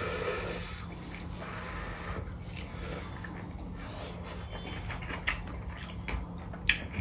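Faint sounds of eating by hand: fingers working food on a steel plate, then chewing with small mouth clicks and smacks, over a low steady hum.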